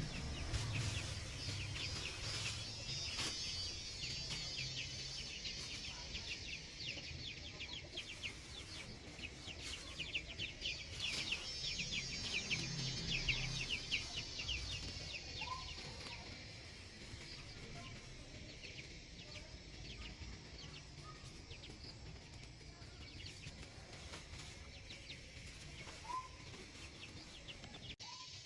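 Farmyard ambience: chickens clucking, under a dense high-pitched chirring that is strongest in the first half and thins out after the middle, with a few short chirps near the end.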